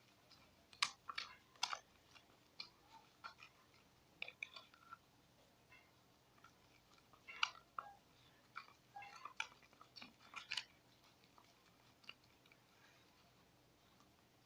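Faint, irregular wet clicks and squishes of a spoon stirring foamy detergent and water in a bowl, in small clusters with short pauses between.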